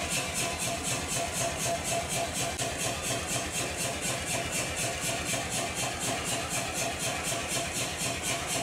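Self-contained air power hammer running idle, its motor and compressor piston chuffing in a steady, even rhythm of several beats a second, with no hammer blows on the steel.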